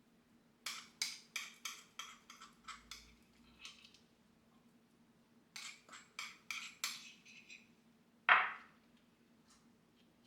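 A quick run of sharp knocks, about three or four a second and fading, then a shorter run, then one louder single knock near the end.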